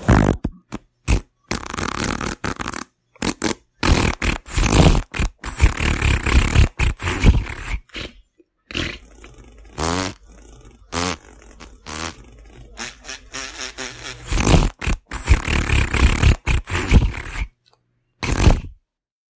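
A long run of comic fart sounds, one after another, many cut off abruptly with dead-silent gaps between them. Some have a wavering pitch, and the middle stretch is quieter.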